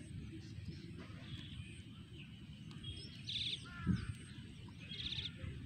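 Birds calling in the open countryside, with two loud harsh calls about three and five seconds in and fainter chirps between them. Under the calls runs a steady low rumble, with a dull thump near the four-second mark.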